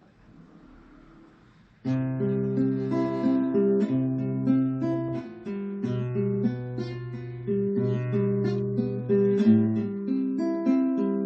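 Nylon-string classical guitar playing a picked arpeggio accompaniment, single plucked notes moving over held bass notes, starting suddenly about two seconds in.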